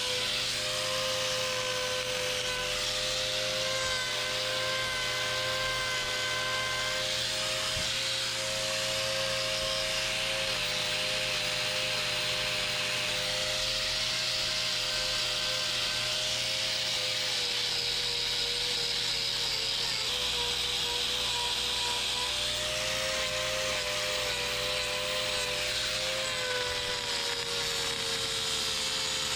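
A handheld power tool running continuously while trimming a cow's overgrown hoof, with a steady whine that sags a little in pitch now and then as it bites into the horn.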